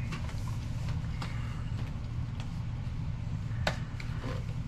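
Handling noise from a rubber full-face gas mask being pulled over the head and onto the face: scattered light rustles and small clicks, one sharper click near the end. A steady low hum runs underneath.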